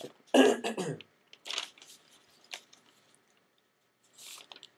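A person coughing once, about half a second in, followed by a few faint clicks and a brief rustle near the end.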